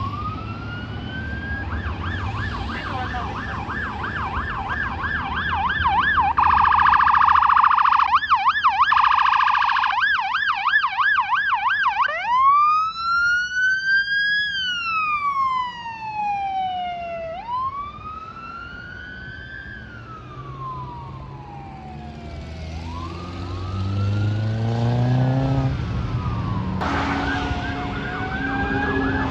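Emergency sirens on responding fire-department apparatus cycling through their tones: a fast yelp, then a louder, very rapid warble, then a slow wail rising and falling twice. About three quarters of the way through, a vehicle engine speeds up under a fainter siren, and a yelp starts again near the end.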